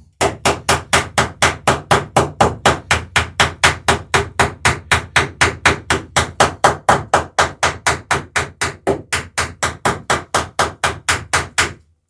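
Hammer striking a rivet in a wooden dory's lapped planking in a steady rapid run of about four blows a second, peening the rivet over, and stopping shortly before the end.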